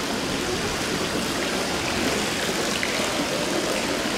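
Steady rushing water noise, even and unbroken, with a few faint ticks like drops.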